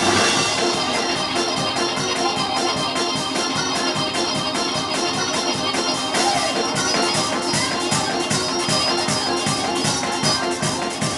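Electric organ playing sustained chords, with percussion keeping a quick steady beat of about four taps a second.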